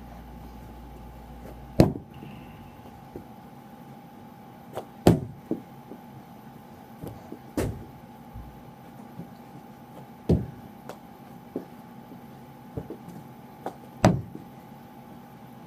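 Sharp knocks and clacks of a knee hockey stick and ball being played, about ten scattered hits with the loudest about 2, 5, 10 and 14 seconds in, over a steady faint hum.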